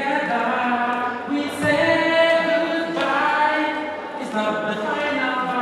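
A group of voices singing together without instruments, in held notes.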